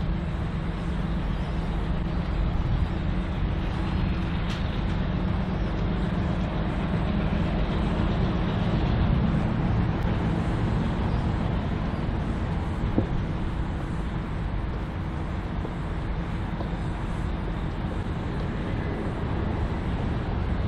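Diesel locomotive engine running with a steady low rumble as a Y class shunter moves slowly through the station yard. A single sharp click sounds partway through.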